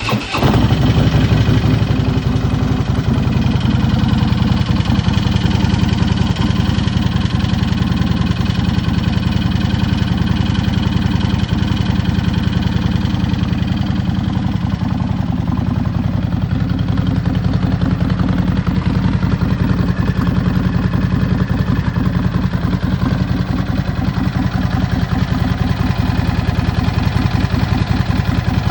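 2017 Harley-Davidson Dyna Low Rider's air-cooled 103 cubic-inch V-twin running just after a cold start, loudest in the first second or two, then settling into a steady idle. A rattle comes from the engine while it is cold.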